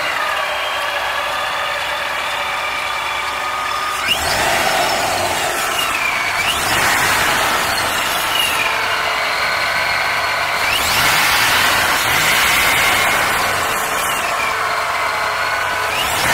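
Pro-charged 5.3-litre V8 being revved, its ProCharger supercharger giving a high whine. The whine climbs sharply with each blip of the throttle and winds down slowly afterwards, four times over.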